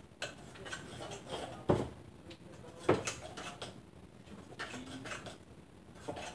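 A spoon scraping and clacking against a mixing bowl as thick muffin batter is stirred, with two louder knocks about a second apart near the middle.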